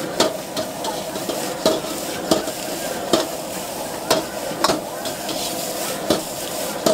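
Metal ladle scraping and knocking against a steel wok as rice noodles are stir-fried, over a steady sizzle; sharp ladle strikes come about once or twice a second.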